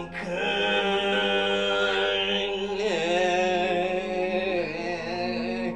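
Background music: a long, held, wordless vocal note over a steady low drone, its pitch dipping briefly and recovering about three seconds in.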